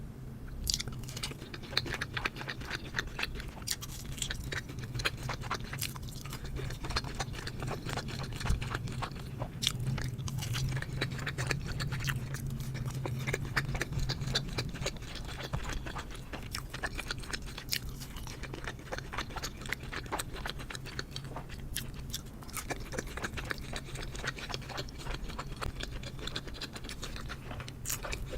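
Close-miked eating sounds: chewing and biting, with a continuous run of small wet clicks and occasional crunches, over a low steady hum.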